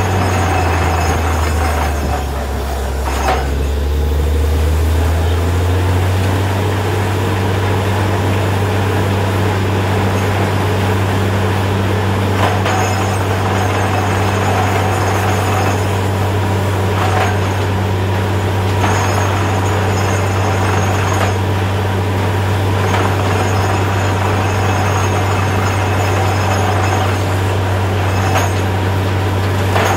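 Truck-mounted borewell drilling rig running while drilling: its engine and air compressor drone steadily. About a second in the drone drops lower in pitch for a few seconds, then comes back up; a few faint knocks sound through it.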